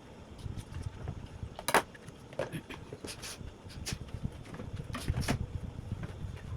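Scattered knocks and clicks of containers and shelves being handled while a refrigerator is cleaned and reorganised, the loudest a sharp knock about two seconds in, over a low background rumble.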